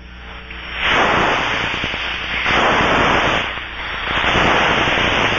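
Ultraprobe 2000 ultrasonic detector's headphone output: a loud rushing hiss of air escaping at an aircraft tire rim, rendered audible by the detector. It swells and fades in waves, about every second and a half, as the probe moves around the rim.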